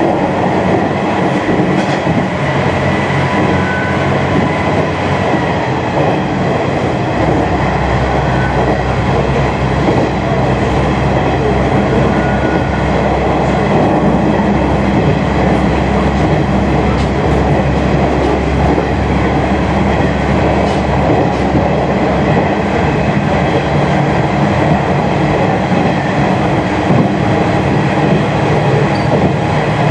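A train running at speed through a tunnel, heard from inside the rear of the train: a steady rumble of wheels on rail and running gear, with a deeper low rumble building from about seven seconds in until near the end.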